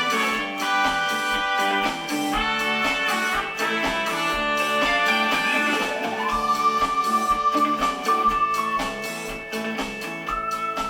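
Instrumental band music with no singing: guitar and other instruments over a regular beat, with one note sliding up about six seconds in and held for a couple of seconds.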